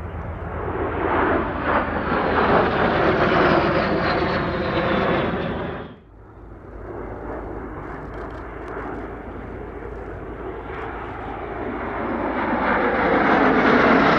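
Turbofan jet noise from a formation of three Aero L-39 Albatros jet trainers flying past: a dense roar that swells, with a high whine sliding down in pitch as they pass. It drops off abruptly about six seconds in, then builds again to a second loud pass near the end.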